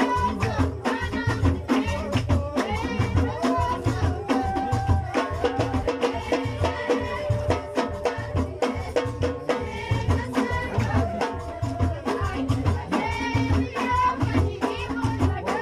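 Amazigh Ahwash folk music: drums keep a steady beat under singing.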